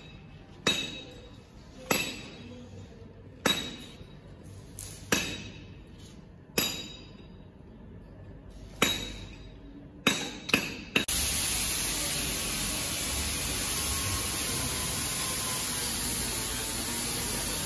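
Hammer blows on metal, roughly one every one and a half seconds, each ringing out and echoing in a large hall, with three quicker blows near the end of the run. About eleven seconds in the blows stop and a steady rushing noise takes over.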